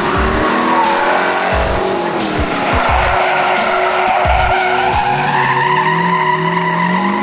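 Pickup truck drifting: its engine revving hard while the rear tires screech and slide on the asphalt. The engine note falls about a second in and climbs again from about five seconds.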